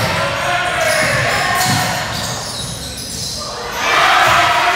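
Basketball bouncing on a hardwood gym floor during play, with voices and court noise echoing around the hall; the noise grows louder near the end.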